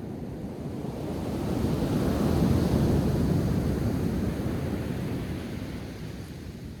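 A sea wave breaking and washing up the shore: a surge of surf that swells over a couple of seconds, then slowly fades away.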